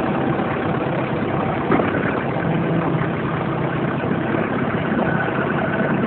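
Ford 755B tractor loader backhoe engine running at a steady idle.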